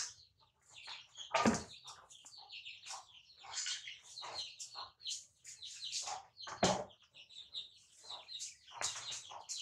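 Birds chirping over and over in quick short calls, with two louder, lower calls about a second and a half in and again near seven seconds.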